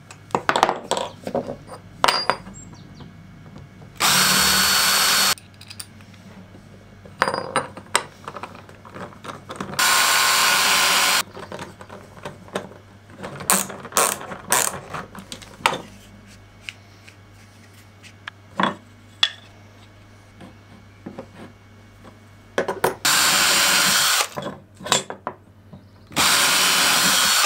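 Cordless drill-driver running in four bursts of just over a second each, driving screws to fix metal parts to wooden blocks. Between the bursts come light clicks and knocks of parts and hand tools being handled.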